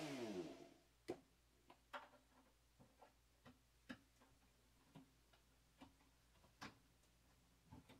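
A Dremel rotary tool on a flexible shaft winding down, its whine falling in pitch and fading within the first second. Then faint, irregular plastic clicks and taps as a snap-in IEC power socket is pressed into its cut-out in the synthesizer's back panel.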